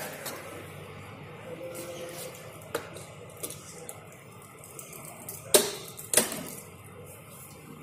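A few light clicks, then two sharp knocks about half a second apart, the loudest sounds, over a steady low background noise.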